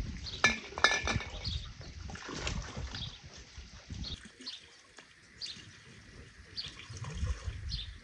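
Water running and splashing as glass jars are rinsed under a stream, with a few glass clinks about half a second in. In the second half, birds chirping faintly.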